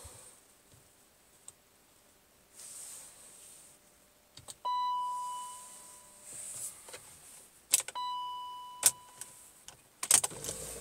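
BMW E39 540i's dashboard warning chime: a single bell-like tone that fades over a second or so, sounding twice about three seconds apart, the first louder. Several sharp clicks come around the chimes, the loudest of them near the end.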